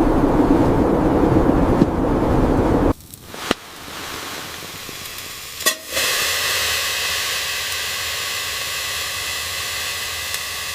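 Blizzard wind buffeting the microphone for about three seconds, then cutting off suddenly. Afterwards two sharp clicks, and from about halfway through a steady hiss.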